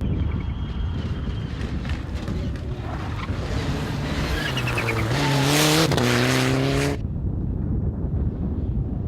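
Rally car driving hard past the microphone, the engine's pitch stepping up and dropping with gear changes and the tyres hissing, loudest about six seconds in. It cuts off abruptly near the end to wind buffeting the microphone.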